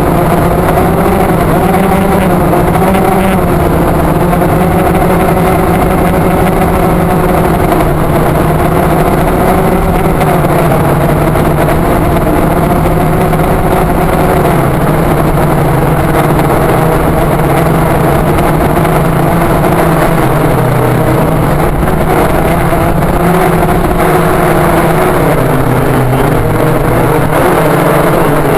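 Phantom quadcopter's motors and propellers buzzing loudly and steadily, picked up close by the action camera mounted on the drone. The pitch wavers gently up and down as the motors adjust, and dips slightly near the end.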